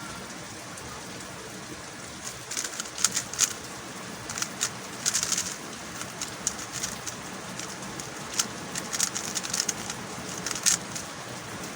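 A MoYu Huameng YS3M MagLev 3x3 speedcube clacking as it is turned fast in a solve, in quick uneven runs of sharp clicks that start a couple of seconds in.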